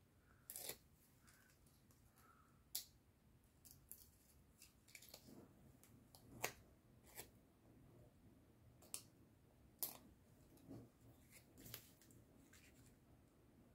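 Near silence with a few faint, scattered clicks and light rustles as hands handle small pieces of paper card and foam tape.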